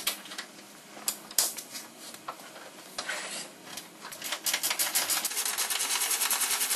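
A few scattered knocks and clanks, then about four and a half seconds in a fast, even mechanical clicking starts and keeps going.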